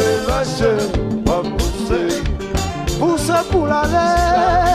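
Haitian konpa band playing live: a steady drum beat under a melody line, with a held, wavering note near the end.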